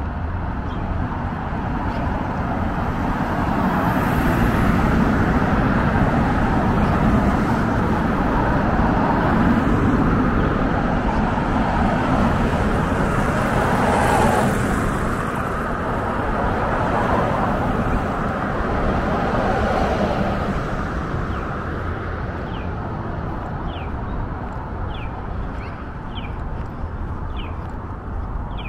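City street traffic: a steady wash of car and road noise that swells as vehicles pass, loudest through the middle, then eases off.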